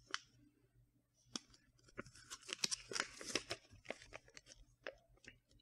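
Folded paper instruction leaflet being handled and unfolded: faint, irregular crackling and rustling of paper, thickest from about two to three and a half seconds in.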